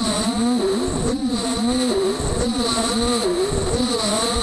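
Beaver HDZero CNC router at work, its stepper motors whining in pitch arcs that rise and fall every half second or so as the axes speed up and slow down along the toolpath. A steady high spindle whine runs over them.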